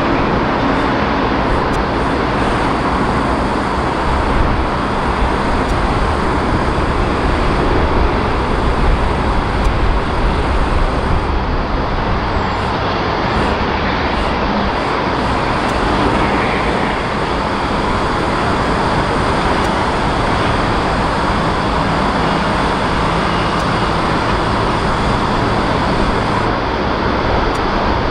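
Jet engine noise from a Singapore Airlines Airbus A380 taxiing on its four Rolls-Royce Trent 900 engines at low thrust: a steady, dense rush with no sharp events.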